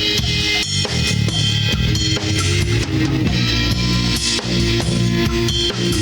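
Garage alternative rock band playing an instrumental passage: drum kit with bass drum and snare keeping a steady beat under electric guitars and bass guitar. It is a raw live recording made on cassette tape.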